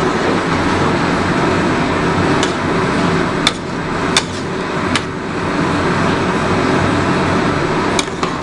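A flat metal spatula stirring thick khichuri in a metal pot, clacking sharply against the pot about three times near the middle and once or twice near the end, over a steady low hum.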